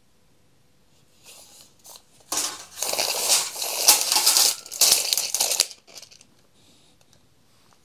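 A DELI HT8316 3 m pocket tape measure's blade retracting into its case: a scraping rattle for about three seconds in uneven spurts, stopping abruptly. Faint handling clicks come just before it.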